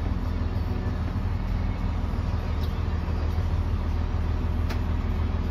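Camper van engine running with a steady low rumble, heard inside the cab as the van moves off slowly.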